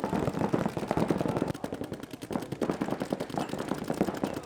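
Several paintball markers firing rapid strings of shots at once: a dense, continuous stream of pops with no gaps.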